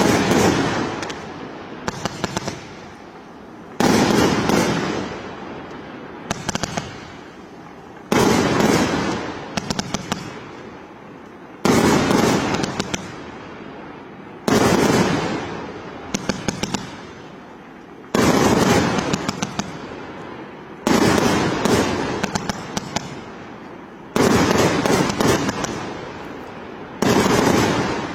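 Fireworks going off one after another: a sharp bang about every three to four seconds, each trailing off into crackling over a few seconds, with a few quick pops just before each bang.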